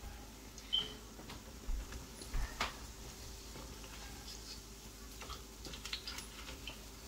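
Pholourie dough balls deep-frying in a pot of hot oil: a soft steady sizzle with scattered crackles and pops, and a few louder sharp clicks in the first few seconds.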